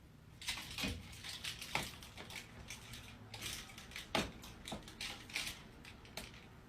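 A busy run of irregular knocks, clicks and rustling, the sharpest knocks about a second in and again a little past four seconds.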